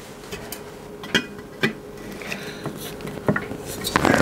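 Scattered light metallic clinks and knocks of hands handling metal parts at a lathe chuck, with a louder cluster of knocks near the end as the model boiler is test-fitted over the freshly turned aluminium riser block. A faint steady hum runs underneath.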